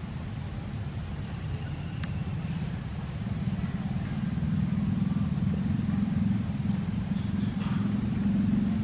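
A motor engine running with a steady low drone that grows louder about three seconds in.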